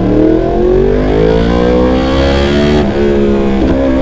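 2019 Yamaha R1's crossplane inline-four revving through an SC Project CRT titanium exhaust: the revs climb for nearly three seconds, fall away sharply as the throttle closes with a couple of backfire pops, then climb again near the end.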